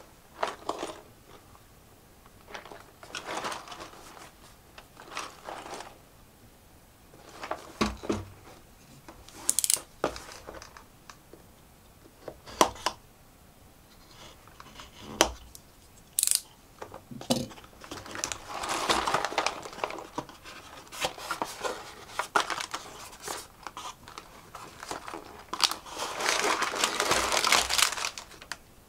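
LEGO set packaging and plastic parts bags being handled and torn open: crinkling and tearing with scattered sharp clicks and taps, and two longer stretches of crinkling in the second half.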